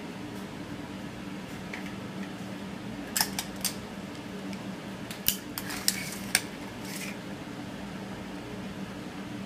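Sharp metallic clicks and rattles of a steel tape measure being handled and its blade pulled out: a few quick clicks about three seconds in, then a louder cluster a couple of seconds later, over a steady low hum.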